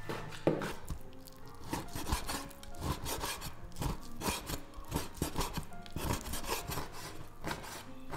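Chinese cleaver slicing and chopping raw beef on a wooden cutting board: a steady run of blade strokes through the meat and onto the wood, about three a second.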